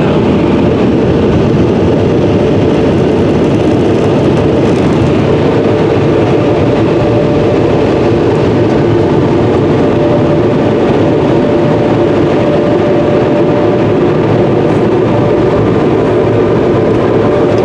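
Car wash dryer blowers running, a loud steady rush of air with a constant hum, heard from inside the car's cabin.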